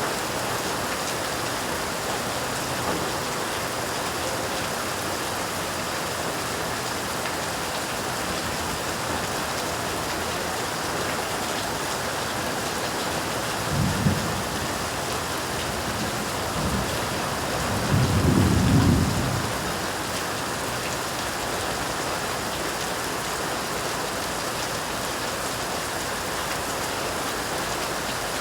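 Steady heavy rain falling. Thunder rumbles low twice about halfway through, the second rumble longer and louder.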